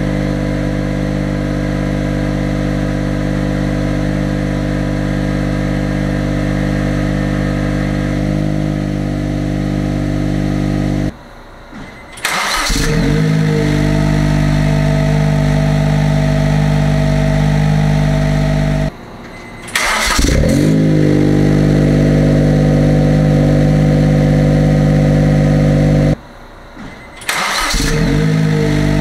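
Honda S660's turbocharged three-cylinder engine idling steadily through a TRUST GReddy Comfort Sports GT-S muffler, then, after a short break, started up three times through an HKS Legamax Premium muffler, each start a quick rev flare that settles back to idle.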